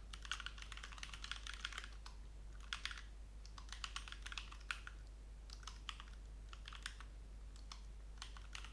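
Computer keyboard typing: fast runs of keystrokes in the first half, then sparser single key presses.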